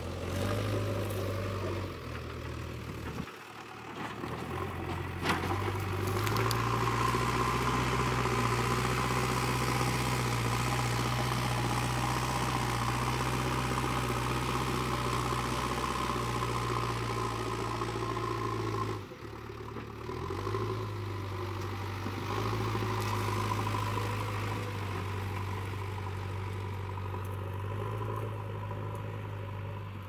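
JCB 3DX backhoe loader's diesel engine running under load, its note stepping up to higher revs about six seconds in and holding there while the machine works in mud. The engine sound drops abruptly twice, around a tenth of the way in and a little past halfway.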